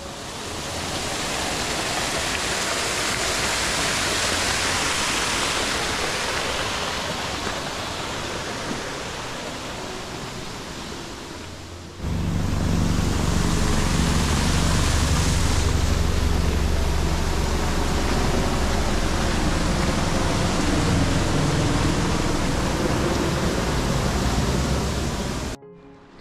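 Steady rushing of a mountain stream's water. About halfway through it changes abruptly to a louder, deeper rush of a small waterfall close by, which cuts off shortly before the end.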